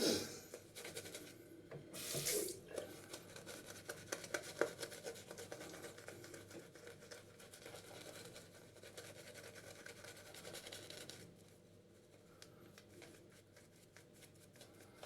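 Vintage C.V. Heljestrand lathercatcher safety razor scraping through lather and stubble in many short, raspy strokes. There is a louder scrape about two seconds in, and the strokes grow fainter after about eleven seconds.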